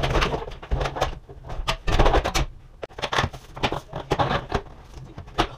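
A new replacement window frame being pushed and shifted into its rough opening, knocking and scraping against the opening and the flashing in an irregular run of clicks and bumps. It is a tight fit around the flashing.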